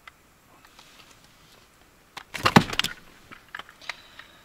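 Handling noise while a fish is weighed: scattered light clicks, then a loud burst of rattling and clattering a little over two seconds in, and more light clicks after it.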